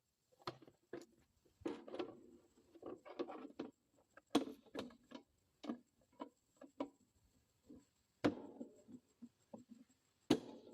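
Irregular metallic clicks and knocks as a new blade is seated and tensioned on a Cook's band sawmill, about twenty of them at uneven spacing, each with a short ring.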